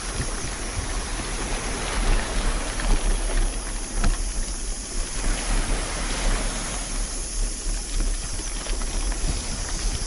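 Wind buffeting the microphone: a steady rushing noise with a heavy low rumble that swells and dips every second or so.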